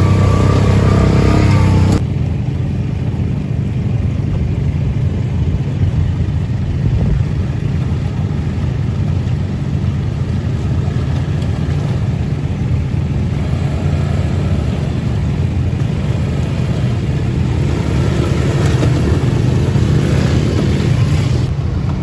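A motor vehicle engine running steadily, with a sudden drop in loudness about two seconds in.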